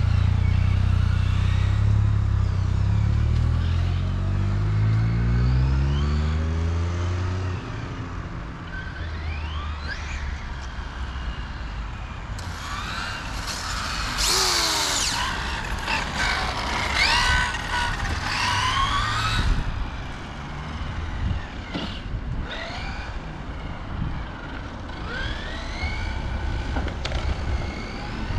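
Radio-controlled model cars running on tarmac. A deep engine note climbs in pitch and stops about seven seconds in. From about twelve to twenty seconds a high whine rises and falls again and again, with shorter whines near the end.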